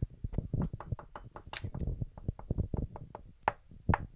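Quick, light, irregular tapping by hand on a tabletop, several taps a second, with a few louder knocks near the end. It is a demonstration of a pattering noise heard on a roof window.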